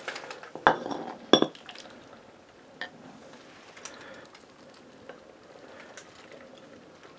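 A ladle clinking against the cooking pot and a bowl as soup is served. There are two sharp clinks about a second in, then a few lighter single taps spaced a second or so apart.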